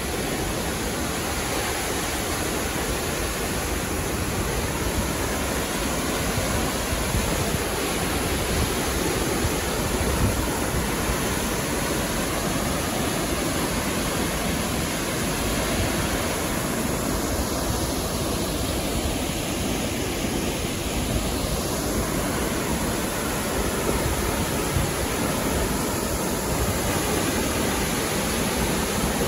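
Large waterfall crashing onto rocks and a pool, a steady, even rushing of water that does not let up.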